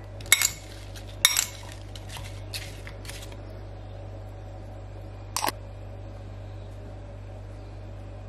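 Metal spoon clinking and scraping against a cut-glass bowl while stirring chopped apples with cinnamon: a few sharp clinks in the first second and a half, lighter taps after that, and one more clink about five and a half seconds in.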